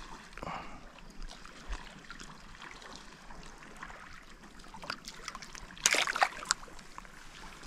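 Shallow seawater trickling and lapping over a rocky reef shore, with a short, louder splash about six seconds in.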